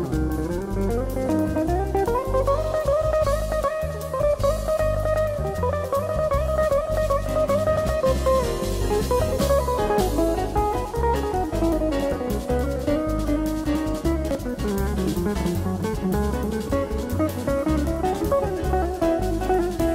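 Jazz group playing: an electric guitar carries a melody that rises and falls, over a steady driving drum-kit and bass groove.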